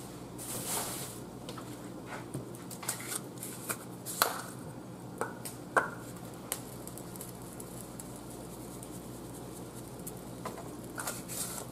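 Quiet handling of a plastic seasoning container: a brief rustle near the start, then a few scattered clicks and taps as the jar is opened and the seasoning is poured into a stockpot. A low steady hum runs underneath.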